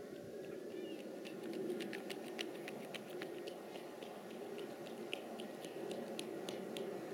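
Distant jet engines of an Airbus A321-200 running at low power on the runway, a steady low hum, with a scatter of sharp clicks over it from about a second in.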